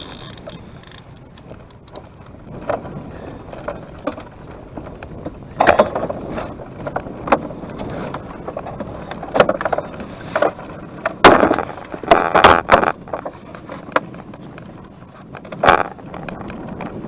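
Steady rush of river water and wind on the microphone, broken by a series of short, sharp knocks and splashes at the side of a wooden boat, the loudest cluster a little past the middle. A large salmon is being played on a bent rod near the boat.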